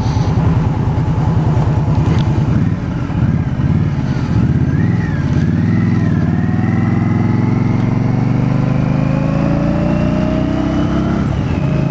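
2018 Indian Scout Bobber's 1133 cc V-twin engine running under way. Its pitch wavers and dips about four seconds in, then climbs steadily as the bike accelerates, and steps down shortly before the end.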